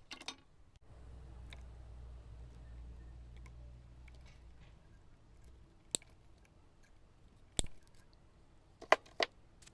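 A cutter snipping through the crimped terminals on a blower fan motor's worn carbon brush wires: a few sharp snaps, one about 6 seconds in, a louder one a moment later, and two close together near the end. A faint low hum runs through the first half.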